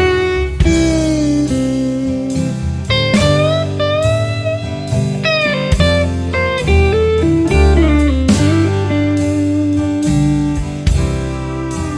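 Background music: a blues tune led by a sliding steel guitar, with bent, gliding notes over a steady rhythm.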